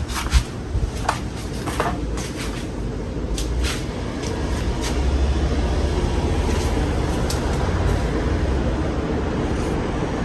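Casablanca Lanai ceiling fan running on its replaced capacitor: a steady whoosh of moving air with a low rumble that grows a little louder about halfway through. A few light clicks come in the first four seconds.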